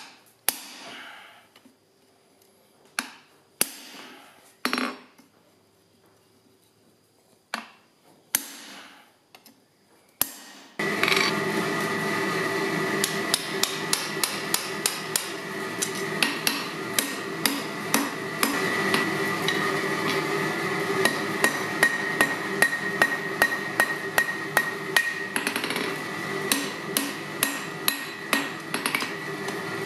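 Hand hammer striking a hot cut chisel to split a red-hot steel bar on an anvil, about eight separate ringing blows with pauses between. About eleven seconds in, a steady mechanical hum with a high whine comes in suddenly, and the hammering turns to rapid blows, several a second, as the hot split bar is forged on the anvil.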